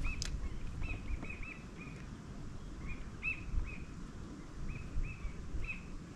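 A small bird chirping: a run of short, quick up-and-down notes, two or three a second with small gaps, over a low rumble.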